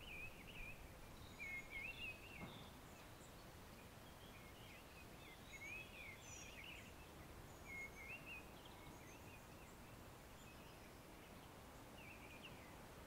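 Faint birdsong from a forest: short warbled phrases repeated with pauses, and a few higher chirps, over a low steady hiss.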